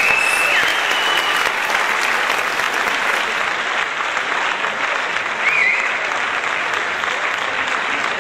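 Audience applauding steadily, with a short whistle at the start and another about halfway through.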